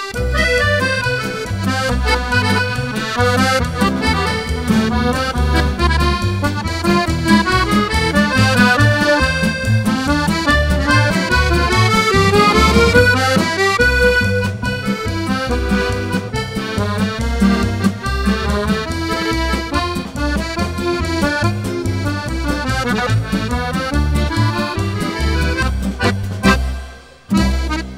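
Instrumental background music led by an accordion over a steady bass beat, with a brief break near the end.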